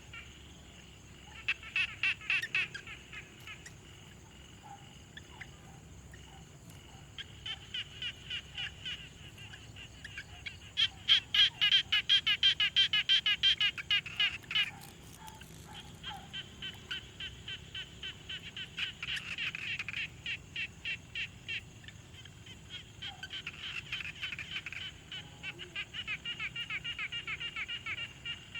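Frog chorus at a pond: frogs calling in rapid pulsed trills that come in several bouts, the loudest near the middle, over a faint steady high-pitched hum.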